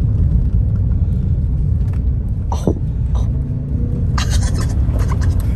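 Ford Bronco driving along a muddy dirt trail, heard from inside the cabin: a steady low rumble of engine and tyres, with a few short clicks and knocks, most of them about four to five seconds in.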